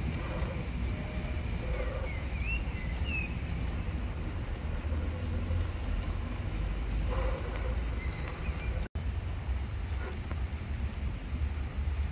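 Steady, gusty low rumble of wind on the microphone, with a few short bird chirps about two to three seconds in. The sound drops out for an instant near nine seconds.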